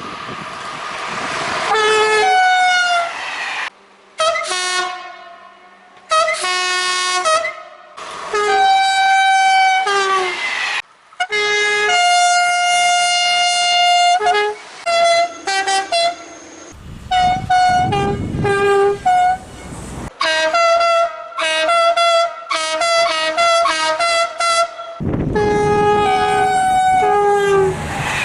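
A run of French SNCF train horns from separate recordings cut back to back. Each is a two-tone horn sounded in short alternating high and low notes, some played as little tunes, and a passing train rumbles under some of them.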